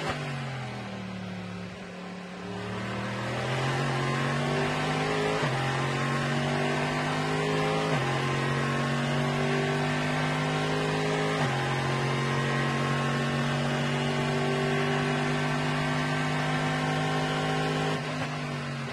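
Chevrolet Corvette C6.R race car's V8, heard onboard: it slows and drops in pitch into a corner, then accelerates hard with three upshifts and runs flat out down the straight, easing off near the end.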